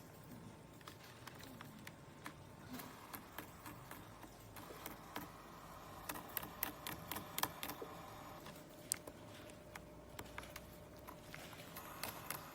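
Irregular light clicks and ticks from a keyboard keycap with a built-in wheel being turned and pressed. The clicks come thickest about six to eight seconds in.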